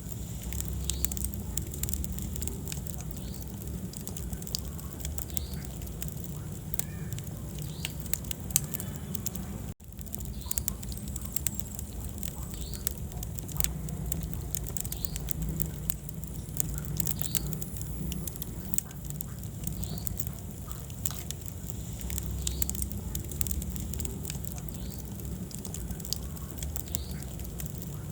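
Wood fire in a fireplace crackling and popping steadily over a low rumble of flame. The sound cuts out for an instant about ten seconds in.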